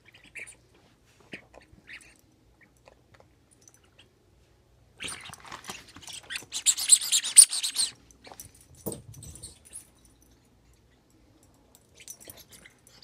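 A small dog playing with a toy: faint, scattered chewing and squeaky sounds, then about five seconds in a few seconds of louder rustling and scuffling, followed by a single thump.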